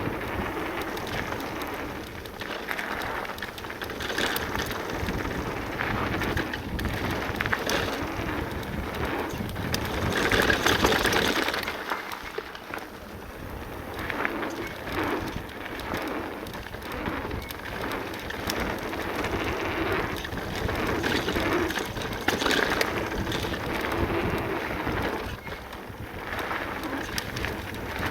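Full-suspension e-mountain bike tyres rolling and crunching over a loose dirt-and-gravel downhill trail at speed, with wind rushing over the microphone; the noise swells louder about ten seconds in and again near twenty-two seconds.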